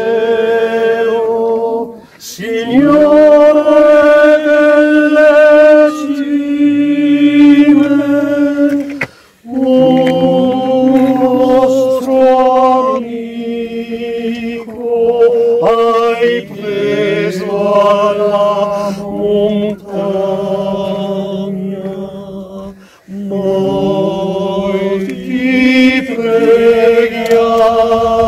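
A group of voices singing a slow song a cappella in harmony, holding long notes in phrases of a few seconds with short breaks between them.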